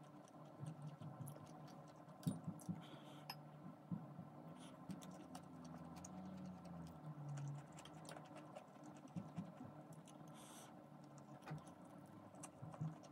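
Quiet eating sounds: stainless-steel chopsticks clicking against a ceramic plate and bowls, with soft chewing, over a faint steady hum.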